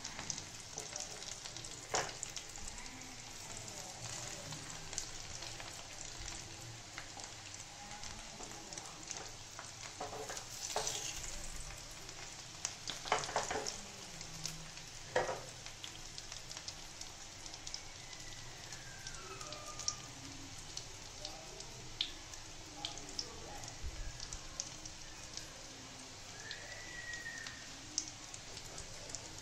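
Breaded chicken pieces shallow-frying in oil in a pan: a steady sizzle with small crackles and pops, and a few sharper clicks.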